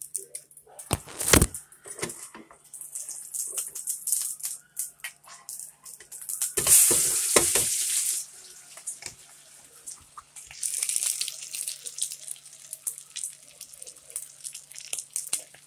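Salmon patties frying in hot oil in a skillet, sizzling with quick crackling pops throughout. A couple of knocks come about a second in, and the sizzle grows louder for a second or two about seven seconds in.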